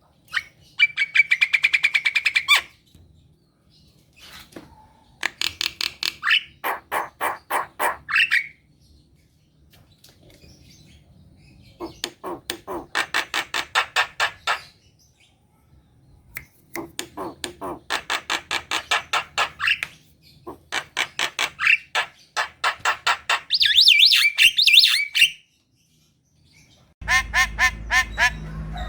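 Javan myna (jalak kebo) singing in repeated bouts of fast, harsh chattering notes, about nine a second, each bout lasting two to three seconds with short pauses between. A low hum comes in near the end.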